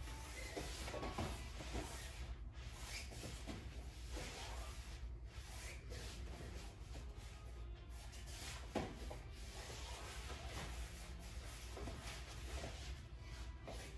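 Bare hands, feet and body thudding and scuffing on foam gym mats as a person turns, sits out and rolls on the floor, with one sharper knock about nine seconds in, over a low steady room hum.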